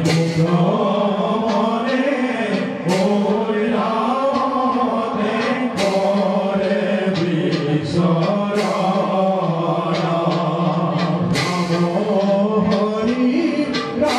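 Voices singing together in held, chant-like lines, the music of Assamese bhaona theatre, with a sharp percussion strike about every three seconds.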